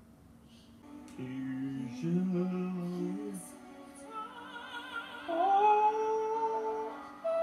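A male singer performs with backing music from the broadcast. After a quiet first second he sings low held notes, then about five seconds in glides up into a high held note with vibrato, his high register sounding almost like a woman's voice.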